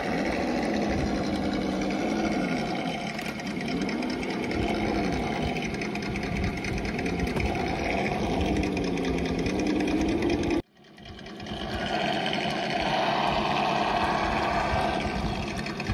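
Simulated V8 engine sound from an ESS sound module on a 1/10 scale TRX-4 crawler, its pitch rising and falling with the throttle. About ten seconds in it cuts out abruptly for a moment and returns at a higher pitch.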